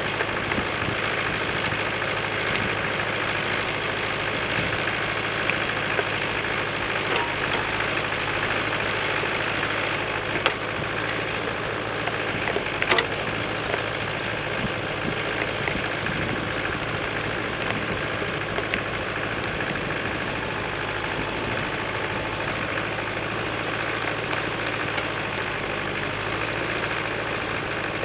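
International Harvester 250 D tractor's diesel engine running steadily, with a couple of short sharp knocks around the middle.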